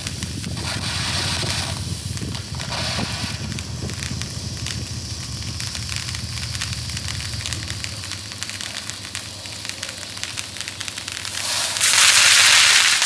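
Fox Tank Engine novelty ground firework spraying a fountain of sparks, a steady hiss with fine crackling throughout. It swells into a much louder hissing burst near the end, then cuts off suddenly as it burns out.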